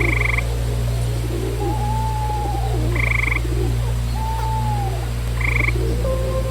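Frogs calling over a steady low hum. Short buzzy pulses repeat every two to three seconds, with lower calls that rise and fall in pitch between them.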